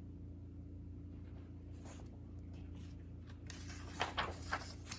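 Soft paper rustling of a picture-book page being turned, in a few quick rustles near the end, over a low steady hum.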